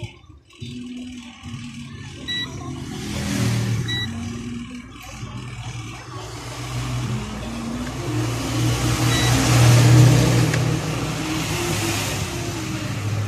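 Passing motor-vehicle traffic: a steady low engine hum under rushes of noise that swell and fade several times. Three short high beeps sound along the way.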